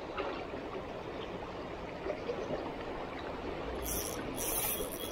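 Steady wash of a fast river current running over shallows. From about four seconds in, a spinning reel is cranked in short spells, a light high whir over the water.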